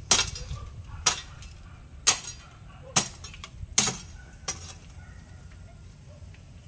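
Garden hoe chopping into the ground to cut weeds, six sharp strikes about a second apart that stop about four and a half seconds in.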